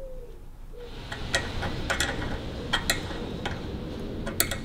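Irregular sharp metallic clicks and clinks of wiring work by hand: crimping pliers and wire terminals being handled and fitted onto a terminal post. The clicks start about a second in and come unevenly, eight or so, with a close pair near the end.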